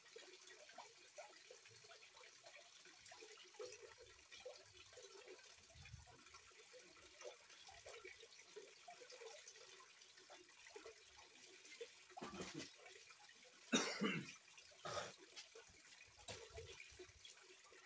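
Faint, steady trickle of running water. A few short, louder noises break in about twelve to sixteen seconds in, the loudest around fourteen seconds.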